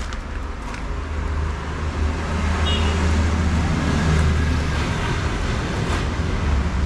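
Steady road-traffic noise: a constant low rumble with a hiss over it.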